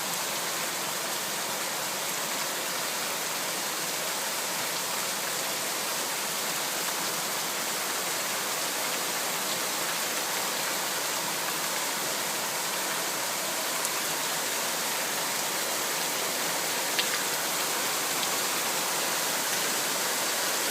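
Heavy rain pouring down steadily, an even hiss of water with no let-up. A single sharp click cuts through it near the end.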